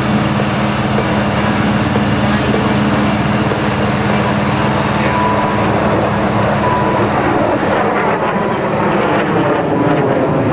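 Jet engines of aerobatic display jets running as the jets manoeuvre overhead: a loud, continuous jet rush with a steady low hum under it.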